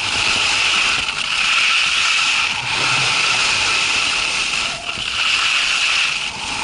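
Steady rushing hiss of skis sliding over snow, dipping briefly every second or two.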